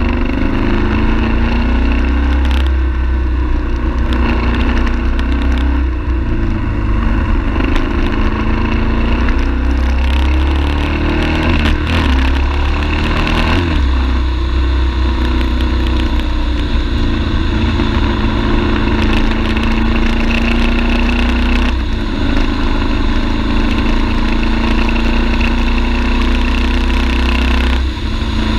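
BMW F 850 GS parallel-twin motorcycle engine running under way, its note rising and falling, over a steady low rumble. There are sudden shifts in pitch about two-thirds of the way through and again near the end.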